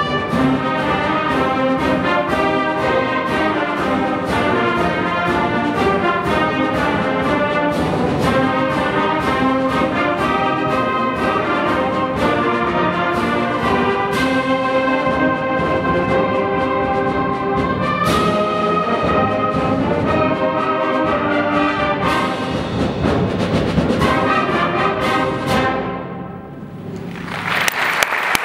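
Junior concert band playing a march, with brass, woodwinds and percussion keeping a steady beat, up to a final chord about 26 seconds in. Applause starts near the end.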